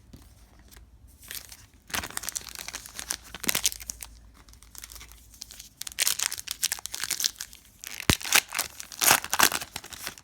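A trading-card pack wrapper being torn open and crinkled by hand, in several bursts of crackling with a sharp snap about eight seconds in.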